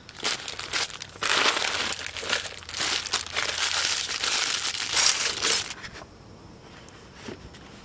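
Plastic packets of lantern mantles crinkling as they are handled and sorted, a run of rustles that dies down about six seconds in.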